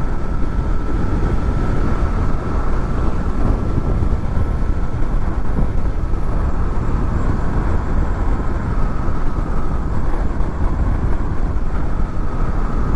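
Wind rushing over motorcycle helmet microphones fitted with furry windshields, with the Honda VFR800's V4 engine running steadily beneath it while riding along. The sound is a steady, heavy low rumble with a faint constant whine.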